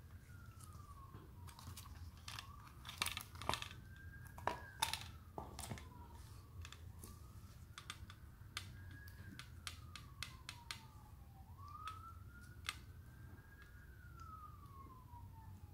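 Clicks, taps and rustles of gloved hands opening and handling a leather sunglasses case, loudest in a cluster about three to five seconds in. Behind them a faint siren wails, slowly rising and falling about every five seconds.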